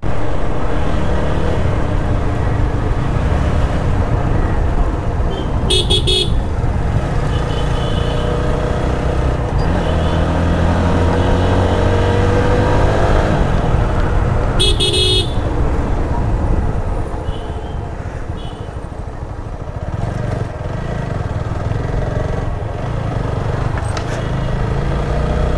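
Motorcycle riding along with engine and road noise, its engine pitch rising and falling between about ten and fourteen seconds in. A vehicle horn beeps briefly twice, about six seconds in and again near fifteen seconds.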